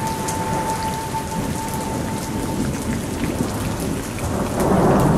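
Heavy rain pouring down as a dense, steady hiss, with a low rumble of thunder swelling near the end. A single steady tone is held underneath throughout.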